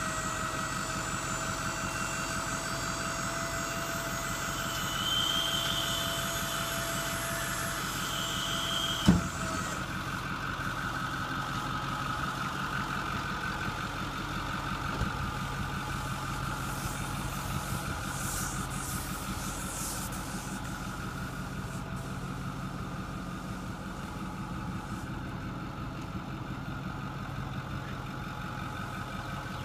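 Ford F-350's 6.4L diesel idling while the Kargo King roll-off's hydraulics lower the tilted bed, with a steady whine from the hydraulics. About nine seconds in there is one loud clunk as the bed comes down and the whine stops; the diesel keeps idling.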